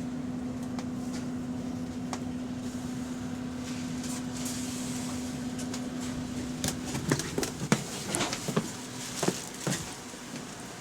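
Electric bus giving off a steady, unusual hum as it moves with the driver off the accelerator, an abnormal noise the rider finds concerning. The hum fades about seven seconds in, and a run of sharp clicks and rattles follows.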